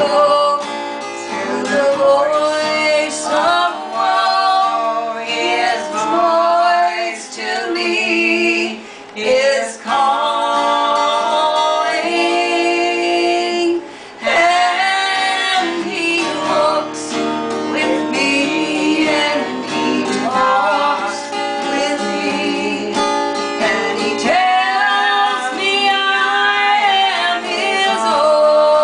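Two women singing a slow song together, accompanied by a strummed acoustic guitar, with short pauses between sung phrases.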